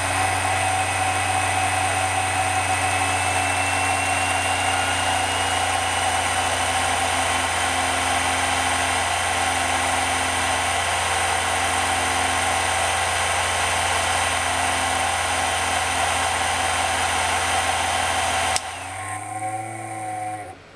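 Sapphire HD 5870 graphics card's squirrel-cage blower fan running with a loud whir and several whining tones, one of them creeping up in pitch early on; the fan's bearing is loose and the rotor jiggles from side to side, making it noisy. About 18 seconds in, the sound drops suddenly and the fan winds down with falling pitch until it stops near the end.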